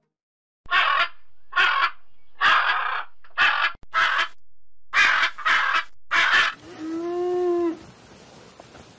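Macaws squawking: eight loud, harsh calls of about half a second each. Near the end comes a single pitched cow moo of about a second that rises slightly and falls.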